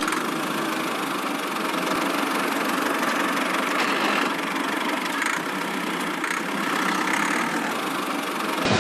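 Engine-like running sound, steady and unbroken throughout, with no deep bass.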